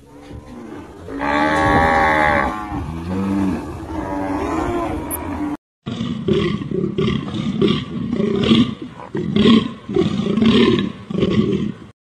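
Cattle mooing: one long, loud moo, then shorter, lower moos. After a cut, a different animal gives a quick run of short repeated calls.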